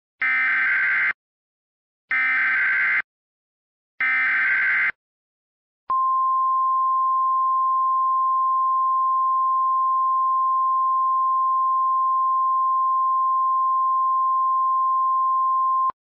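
Emergency Alert System header: three bursts of warbling digital data tones, each about a second long and a second apart. Then one long, steady, piercing attention tone for about ten seconds, signalling that a blizzard warning is about to be read.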